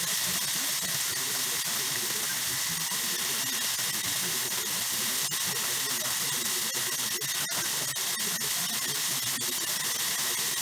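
Chicken pieces deep-frying in a pot of hot oil: a steady sizzling hiss with frequent small crackles and pops.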